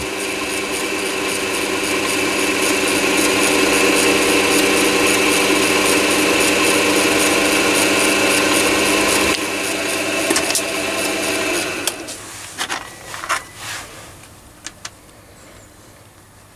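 Chinese mini lathe running, its motor and headstock gears giving a steady whine with several fixed tones. About twelve seconds in it winds down and stops, followed by a few light clicks and knocks.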